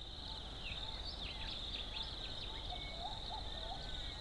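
Outdoor ambience of a steady, high insect trill, with birds calling over it in short chirps and a run of repeated looping notes.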